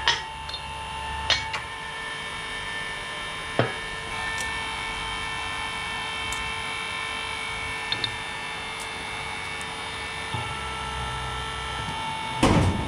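Sharp metal knocks and clinks as a steel tube is set on a differential carrier and lined up under a hydraulic press ram, the loudest knock near the end, over a steady hum of several held tones.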